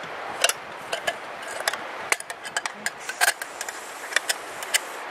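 Metal grill hardware (bolts, washers and leg parts) clinking and clicking as it is handled and fitted together, an irregular run of many short sharp clicks.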